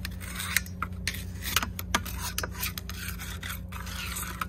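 Hand tool scraping caked muck off a van's steel wheel and tyre, rasping in quick, uneven strokes over a steady low hum.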